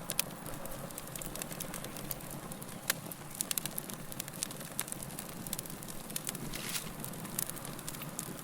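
Fire crackling: a steady hiss and low rumble of burning with frequent sharp pops and snaps scattered through, a quick run of pops a few seconds in.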